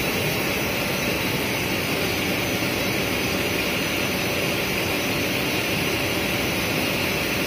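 Six-colour rotogravure printing machine running: a steady, even mechanical hum with a hiss on top, unchanging throughout.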